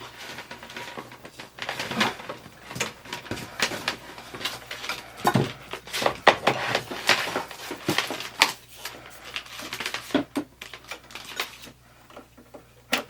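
Computer cables and plastic parts being handled and arranged: irregular clicks, knocks and rustling, with no steady rhythm.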